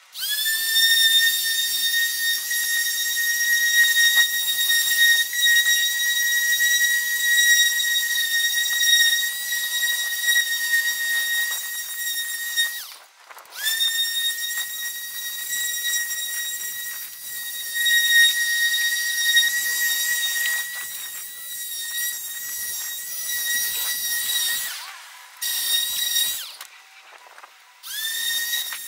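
Electric palm sander running with a steady high-pitched whine as it sands a wooden board. It is switched off about 13 seconds in and started again at once, then stops and restarts twice more near the end.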